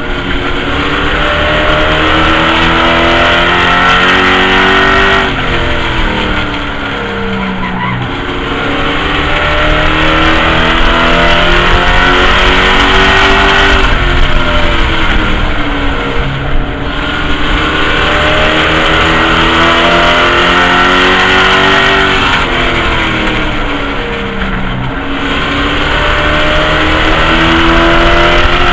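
A race truck's engine heard from inside the cab at racing speed, its pitch climbing as it pulls hard and then dropping as the driver lifts off, three times over: about five, sixteen and twenty-four seconds in.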